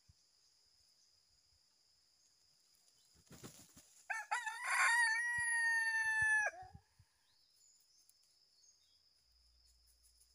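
A rooster crows once, a crow of about two and a half seconds ending on a long held note, just after a brief rustle. A steady high insect drone runs underneath.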